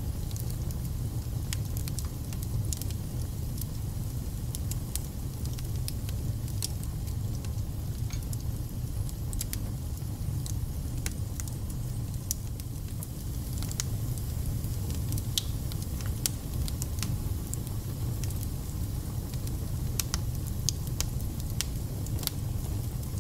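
Log fire burning in a fireplace: a steady low rumble with frequent sharp crackles and spitting pops scattered throughout.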